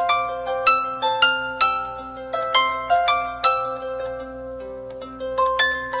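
Background music: a melody of plucked notes, each struck sharply and fading, about two a second, over steady held lower notes.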